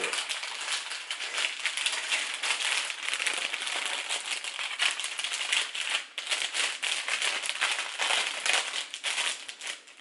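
Plastic chip bags crinkling continuously as they are handled and one bag is stuffed inside another.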